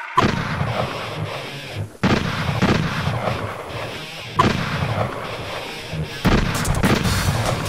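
Four heavy gunshot sound effects about two seconds apart, each ringing out in a long echoing tail.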